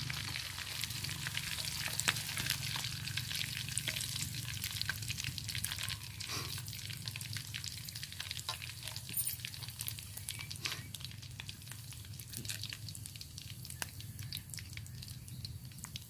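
Punai (green pigeon) deep-frying in hot cooking oil in a wok: a steady sizzle with many small pops and crackles, easing slightly as it goes on, as the birds finish cooking.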